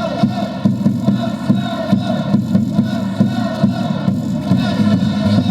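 Baseball stadium crowd chanting and cheering over loud cheer music from the PA system.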